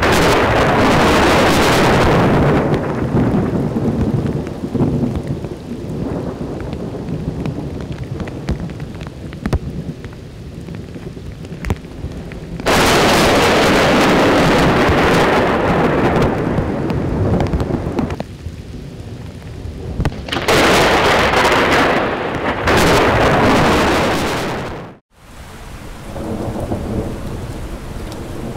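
Thunder rolling over steady heavy rain. There is a long loud peal at the start, another that breaks suddenly about halfway, and a third a few seconds later. After a brief dropout near the end, rain alone hisses as it falls on water.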